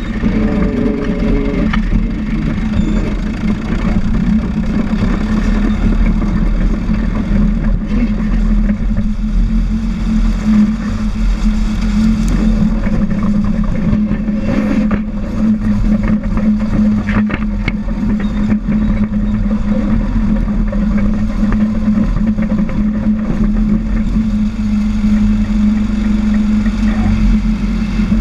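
Caterpillar D4 crawler dozer's four-cylinder diesel engine running steadily as the dozer moves along pushing dirt.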